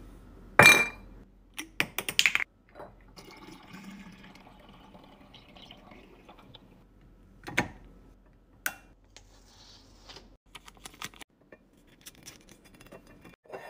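Glass bottles clinking against each other and the countertop, then seasoned rice vinegar poured through a funnel into a glass bottle as a faint, steady trickle. Near the end, a run of small light clicks and taps.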